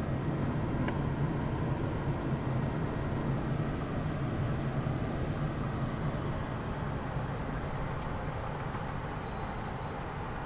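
Steady cockpit noise of a Gulfstream G550 in flight, a mix of airflow and engine hum, easing slightly over the seconds. A brief high hiss comes near the end.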